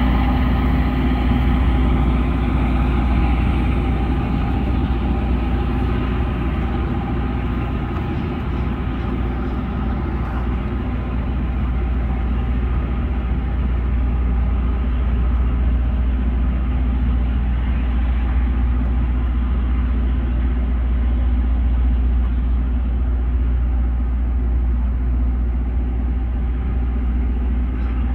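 Loram rail grinder train grinding the rail as it moves off: a steady, heavy low drone from its engines with grinding noise over it, easing slightly after the first few seconds.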